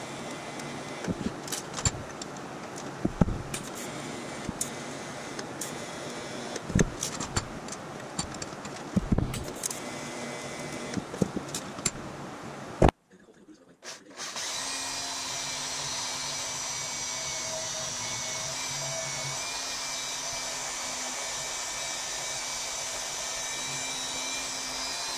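TIG welding: a steady arc hiss broken by scattered sharp clicks. It cuts off about halfway through, and after a short pause a Milwaukee portable band saw runs steadily with an even whine, cutting through a steel tube clamped in a vise.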